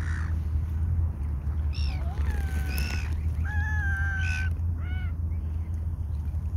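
Mute swans calling: several short, high calls, one of them held steady for about a second near the middle, over a steady low rumble.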